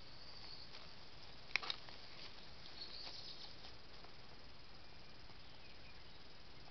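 Steady hiss of a trail camera's microphone with faint high chirps, broken about one and a half seconds in by a sharp crackle and a smaller one of leaf litter as an animal moves off.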